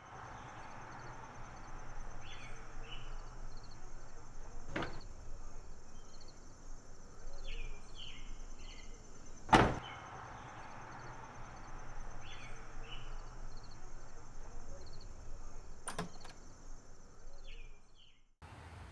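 Outdoor ambience: a steady hiss with faint, evenly repeated high ticks and pairs of short chirps every few seconds. Three sharp knocks cut through it, the loudest about halfway through, fitting a car door being shut.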